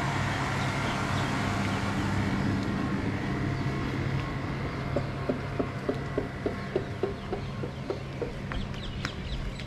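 Steady low engine hum. About halfway in, a fowl gives a quick run of short calls, about three a second, for some three seconds. A few high bird chirps follow near the end.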